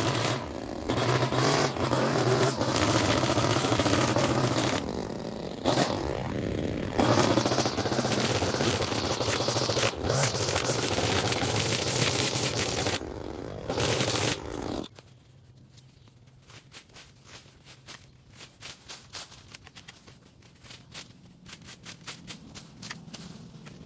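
A small gas engine on lawn equipment running steadily and loud. About 15 seconds in the sound drops off suddenly to quiet, leaving faint scattered ticks and rustles.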